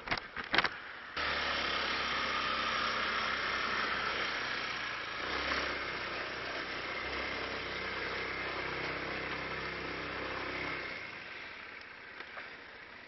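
Motorcycle engine starting about a second in and running steadily at low revs, then switched off about eleven seconds in.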